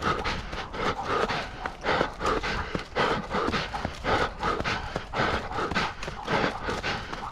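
A runner's hard, rhythmic breathing and footfalls while running fast with a canicross dog, about three pulses a second.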